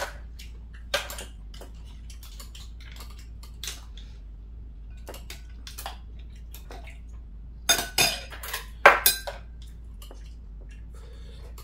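Metal chopsticks and spoons clinking against bowls and mussels while mussel soup is eaten: scattered light clicks, with a burst of louder clatters about eight to nine seconds in.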